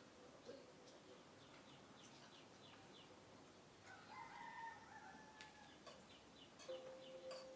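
A rooster crows once about four seconds in, a single long, faint call of about two seconds. Short high chirps repeat throughout.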